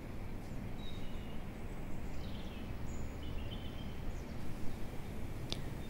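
Quiet room ambience: a steady low hum with a few faint, short bird chirps in the first half. A single small click comes near the end.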